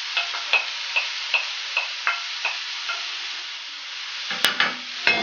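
Mixed minced chicken, beef and pork sizzling as it goes into a frying pan of hot soffritto, with a wooden spoon tapping and scraping the mince off a bowl about twice a second. A sharp click about four seconds in, then a few louder knocks near the end.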